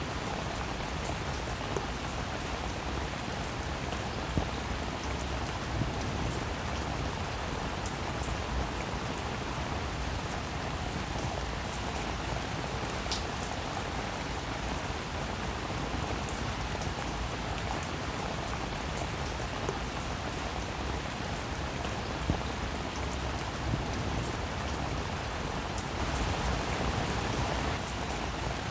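Steady rain falling, with scattered sharper drop ticks, and a slight swell in intensity near the end.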